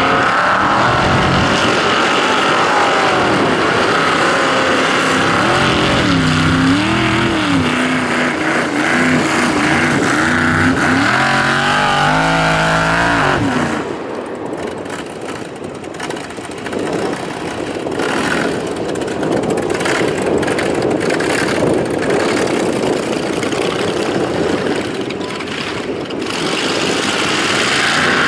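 Formula Offroad buggy's racing engine revving hard, its pitch rising and falling as the throttle is worked. About fourteen seconds in the steady engine note breaks off and the sound turns quieter and rougher, then the revving builds again near the end.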